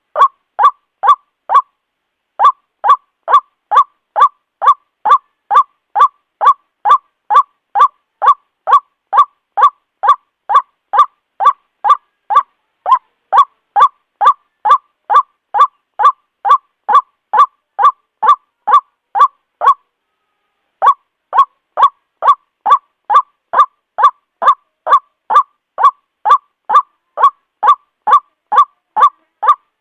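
White-breasted waterhen (Amaurornis phoenicurus) giving its loud "ruak-ruak" call, short notes repeated steadily about three a second. It breaks off briefly twice, about two seconds in and again around twenty seconds in.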